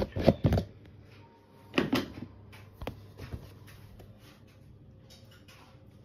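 Plastic clicks and knocks from handling a liquid-detergent bottle over a washing machine's detergent drawer: a cluster in the first half-second, a louder one about two seconds in and a sharp click near three seconds, then only faint sound.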